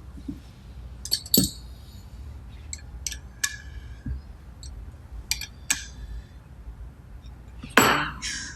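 Small metal parts clinking as pneumatic pipe fittings are handled and threaded in by hand: several short ringing clinks, then a louder clatter near the end.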